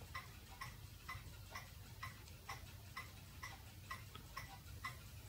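Faint, even ticking about twice a second from the FenSens wireless parking sensors as they ping for obstacles.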